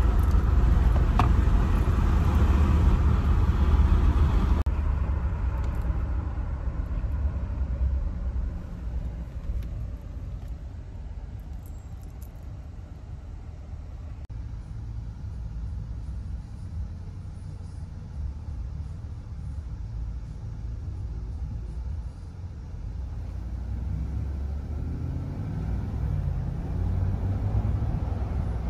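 Road and wind rumble inside a moving car with a window open, a steady low noise. It drops after about five seconds and builds up again near the end.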